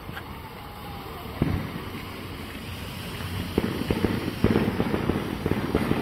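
Small ground fountain firework spraying sparks: a steady hiss dotted with sharp crackles and pops, which grow denser about three and a half seconds in.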